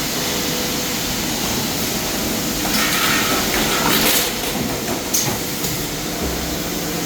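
Automatic tube bending machine running: a steady machine noise broken by short bursts of hiss, the longest about three seconds in, then two briefer ones about four and five seconds in.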